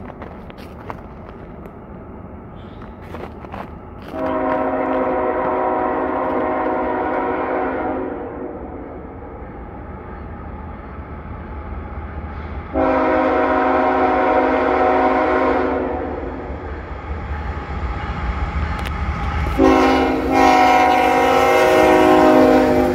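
Lead locomotive's multi-note air horn, on a GE ET44AH, sounding the grade-crossing signal as the coal train nears the crossing: two long blasts, a short one and a final long one. Under it, the locomotive's diesel rumble and the rolling train grow louder as it draws close.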